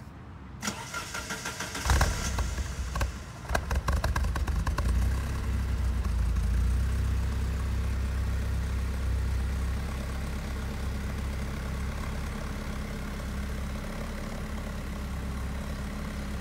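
1989 Alfa Romeo engine cold-started: the starter cranks for about a second, the engine catches about two seconds in, runs unevenly for a couple of seconds, then settles into a steady idle that eases down a little after about ten seconds.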